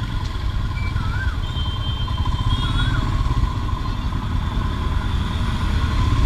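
Royal Enfield Himalayan's single-cylinder engine running while the bike rides slowly in city traffic, a dense steady rumble mixed with wind and road noise. Over it are a faint steady tone and a small warbling electronic chirp heard twice, about a second and a half apart.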